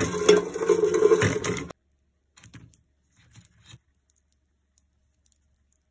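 Roasted chestnuts sliding off an air fryer's metal basket and clattering into a wooden bowl, stopping abruptly just under two seconds in. Then a few faint crackles of a roasted chestnut's shell being split and peeled by hand.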